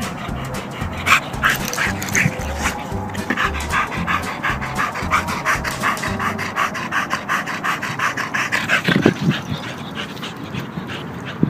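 Half-pitbull dog panting quickly and steadily close to the microphone, in rapid even breaths. There is one brief low thump about nine seconds in.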